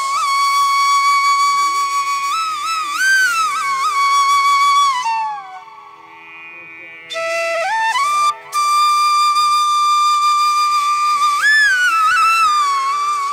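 Background flute music: long held notes with slides between them, pausing briefly about halfway through before the melody resumes.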